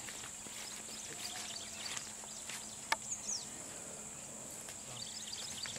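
A steady, high-pitched insect drone with scattered short bird chirps over it. One sharp click about three seconds in.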